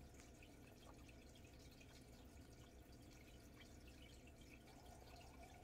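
Near silence: faint soft ticks and rustles of a crochet hook working cotton yarn, over a low steady room hum.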